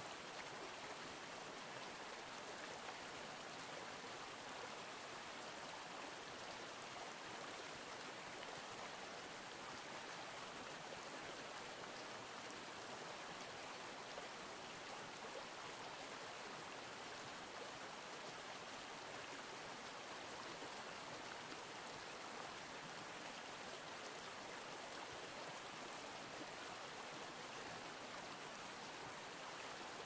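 A stream running steadily, a soft, even rush of water with no change throughout.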